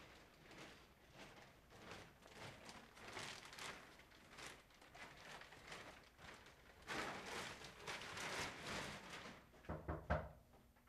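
Faint city street noise, with a louder swell of a vehicle passing a few seconds before the end, then a short low thump near the end.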